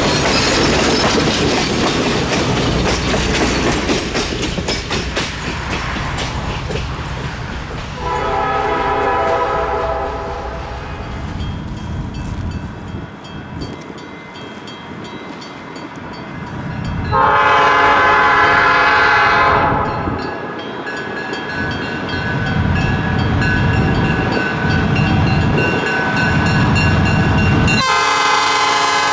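Passenger cars rolling past with clickety-clack over the rail joints, then an approaching Conway Scenic GP35 diesel locomotive, No. 216, sounding its multi-chime air horn in three long blasts, about 8 s in, about 17 s in and again near the end. Between the last two blasts the locomotive's diesel engine rumble grows louder as it nears.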